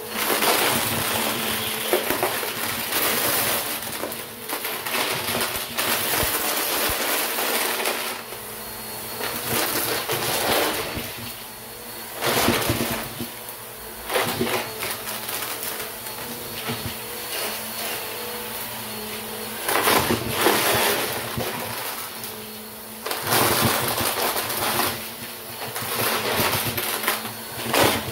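Bissell upright vacuum cleaner running on carpet, its motor humming steadily while it sucks up plastic water-bottle caps and fake coins, which rattle and clatter through the brush head and bin in repeated bursts every few seconds.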